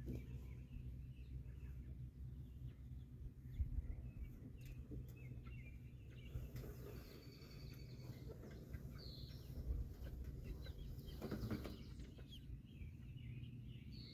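Faint outdoor ambience: a low steady rumble with scattered faint bird chirps. About eleven seconds in comes a brief rustle as the wheeled chicken tractor is pulled over the grass.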